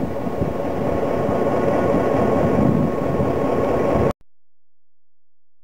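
Southern Pacific EMD GP9 diesel-electric locomotive running steadily, a dense engine rumble with a faint steady whine over it. The sound cuts off suddenly about four seconds in.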